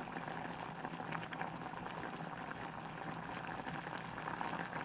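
A thick, creamy mixture boiling in a saucepan on a gas stove, with a steady stream of small pops from bursting bubbles.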